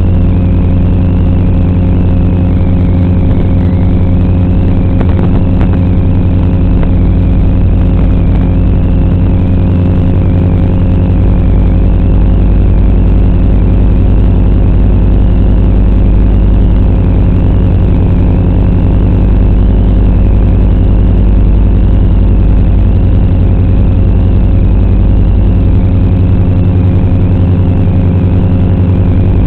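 FPV racing quadcopter's motors heard as a steady, loud hum made of several fixed low tones, with a high whine that wavers slightly in pitch.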